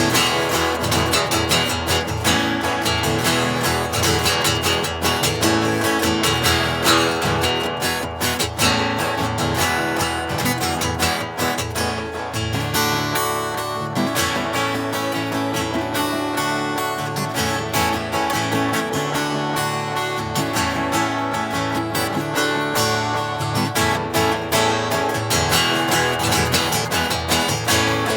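Taylor GS5 cedar-top acoustic guitar strummed with the fingers, chords played in a steady rhythm.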